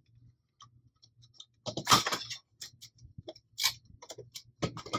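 Sharp clicks and knocks as the BCAR is pushed over the Nerf blaster's barrel. The loudest cluster of clicks comes about two seconds in, with more scattered ones later.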